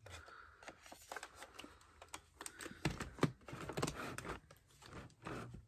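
Light, irregular clicking and rattling of a 1:16 RC M5A1 Stuart tank's plastic tracks and working suspension being handled, with a couple of louder knocks about three seconds in; the tracks are loose enough to need tensioning.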